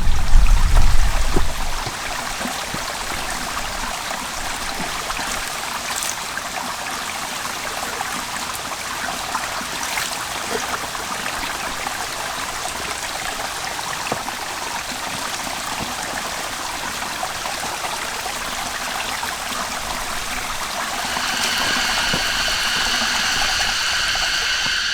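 Steady rush of flowing water, like a stream, with a loud low rumble of wind on the microphone in the first second or so. Near the end a steady pitched tone with several overtones joins in.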